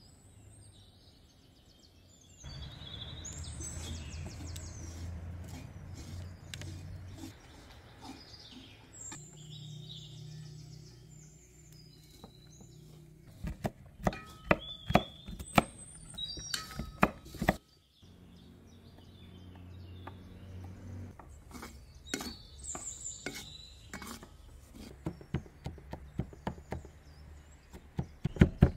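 Kitchen knife chopping shelled walnuts on a wooden cutting board, in rapid runs of sharp chops about halfway through and again near the end, with birds chirping.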